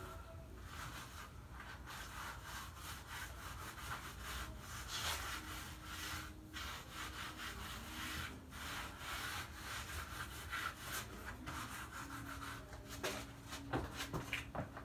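Grout being rubbed by hand across the rough tiles of a mosaic panel: a continuous back-and-forth scraping and scrubbing. The rubbing stops near the end, followed by a few sharper knocks.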